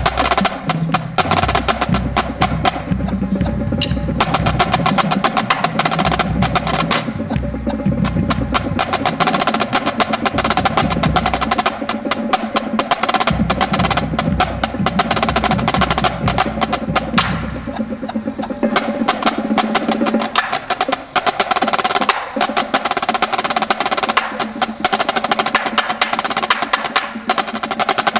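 A line of six marching snare drums played in unison, fast tightly tuned stick strokes packed close together with a dry, wood-block-like crack. A low rumble sits underneath and drops away about eighteen seconds in.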